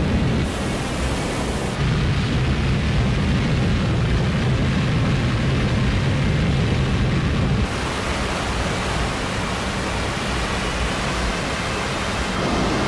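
Live electronic noise-drone music: a dense, loud wash of noise heavy in the low end. Its texture changes abruptly several times: a high hiss cuts in for about a second near the start, and the sound thins and shifts about two-thirds of the way through and again near the end.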